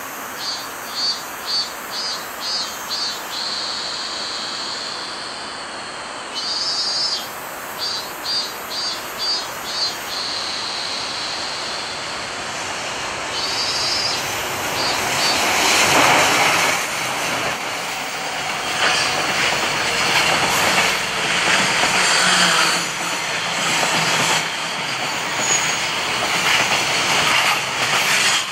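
High, pulsing cicada calls in repeated runs at first. Then a JR Freight EF200 electric locomotive hauling a container freight train approaches and passes, loudest about halfway through. Its container wagons follow, their wheels clicking rhythmically over the rail joints.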